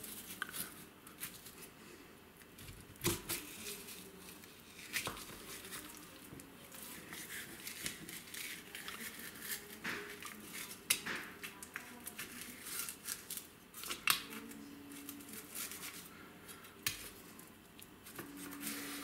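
Chef's knife slicing and scraping along the rib bones of a venison saddle on a bamboo cutting board while the back meat is cut free, with irregular clicks and scrapes of the blade on bone and board.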